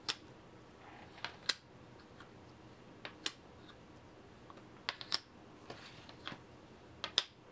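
Plastic poker chips with stickers on their faces clicking against each other and tapping down on a wooden tabletop as they are picked up and laid out, in about a dozen scattered clicks, some in quick pairs.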